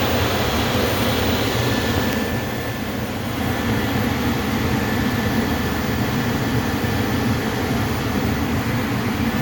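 Gas furnace running with a steady rushing hum. About two seconds in, the high hiss drops away and a low hum carries on.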